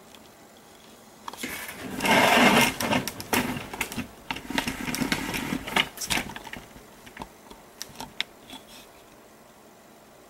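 Irregular rustling, bumps and sharp clicks from a handheld camera being moved about among cables and desk items, loudest about two seconds in and quieter toward the end.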